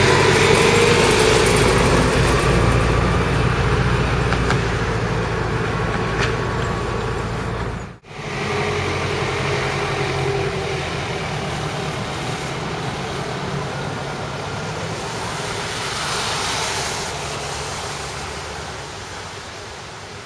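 A diesel RTS city transit bus pulling away close by, its engine loud and rising in pitch as it accelerates. After a sudden cut about eight seconds in, there is traffic on a wet, slushy street: tyres hiss on the wet road, and one vehicle swells past about two-thirds of the way through before the sound fades.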